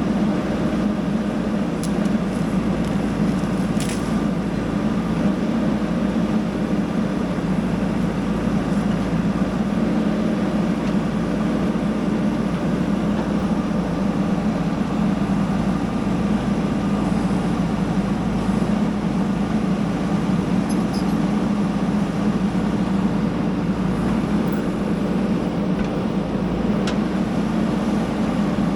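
Diesel engine of a JCB backhoe loader running steadily under work, a constant low drone with a few faint clicks.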